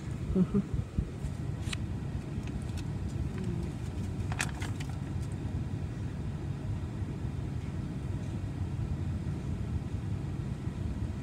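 Steady low vehicle rumble, like road noise inside a moving car, with a brief louder sound near the start and a few faint clicks.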